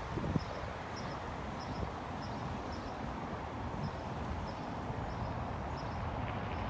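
Outdoor city ambience: a steady hum of distant traffic and wind, with a small bird chirping faintly in quick pairs, about two pairs a second. There is a brief thump just after the start.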